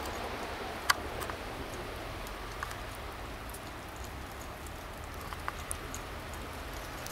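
Steady soft outdoor hiss with scattered light ticks and one sharp click about a second in.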